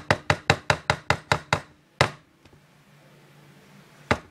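Spatula knocking rapidly against a mixing bowl while scraping out brownie batter, about six even knocks a second. The knocking stops after about a second and a half, with one more knock at about two seconds and a few more near the end.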